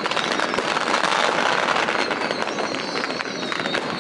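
Strings of firecrackers going off continuously on the fishing boats, a dense rapid crackle of pops, with thin whistles falling in pitch now and then above it.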